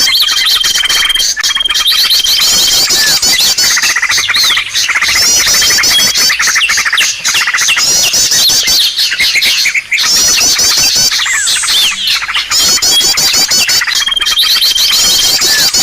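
Bird-lure recording of many small songbirds calling at once: a dense, loud, unbroken chatter of rapid chirps and trills. A long, steady high whistle sounds near the start and again near the end.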